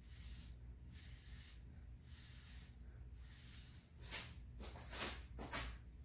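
Short puffs of breath blown through a straw onto wet acrylic paint, a breathy hiss about once a second, with three stronger blows near the end.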